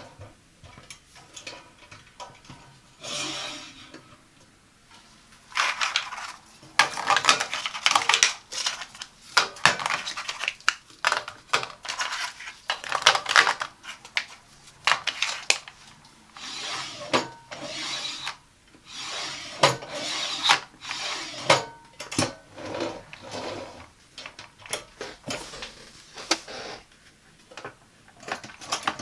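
Metal coffee-pod drawer and plastic single-serve coffee pods being handled: a dense run of sharp clicks and scrapes as pods rub and knock against the drawer's wire rails, thinning out near the end. The drawer slides on its rails and a coffee maker is shifted on top of it.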